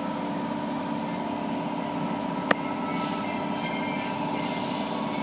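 Automatic car wash tunnel machinery (pumps, spray arms and brushes) running with a steady hum and water noise, heard through the viewing-window glass, with one sharp click about halfway through.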